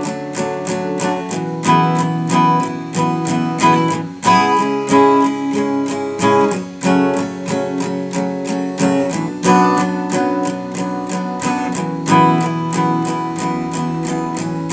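Steel-string acoustic guitar strummed in a steady rhythm, with the chords changing every few seconds.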